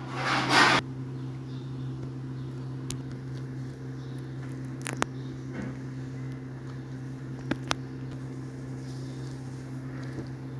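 A steady low electrical hum, with a burst of rustling noise in the first second and four sharp clicks spread through the middle.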